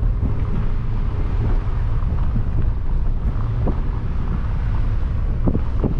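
Wind buffeting the camera microphone outdoors, a loud, uneven low rumble.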